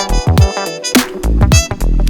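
Background music with a steady beat: a deep kick drum falling in pitch about twice a second, with sharp snare and hi-hat hits over it.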